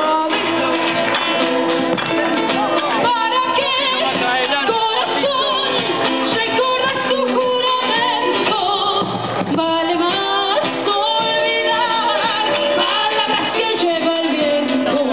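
Argentine cueca folk song: singing with instrumental accompaniment, playing steadily for the dance.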